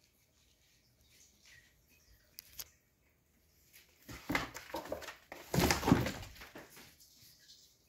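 A playing cat scuffling and rustling on foam floor mats and against a cardboard box: a scramble of rustles and soft thumps from about four to seven seconds in, loudest near six seconds.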